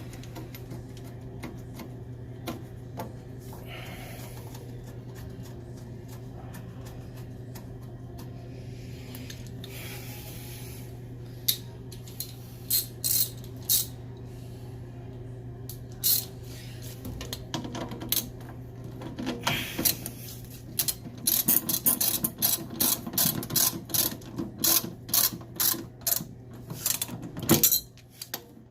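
Ratchet wrench clicking as bolts are tightened: scattered clicks at first, then quick runs of clicks through the last third. A steady low hum runs underneath.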